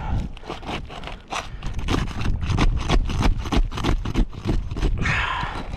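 Brittle asphalt roof shingle being pried up where its sealant strip is stuck fast: a quick run of scraping and crackling as the tar strip tears loose, with a longer scrape near the end.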